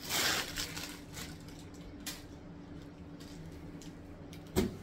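Cloth rustling as a folded dress is picked up and handled, loudest in the first half second, with a short thump near the end and a faint steady hum underneath.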